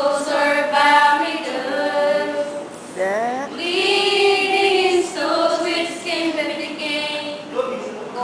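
Five women singing together without accompaniment, holding long notes, with a rising slide in pitch about three seconds in.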